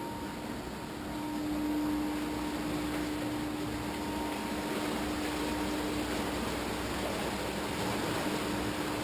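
Cargo & Kraft low-head water turbine running: a steady rush of churning water around the spinning turbine shaft, with a low machine hum that grows louder about a second in.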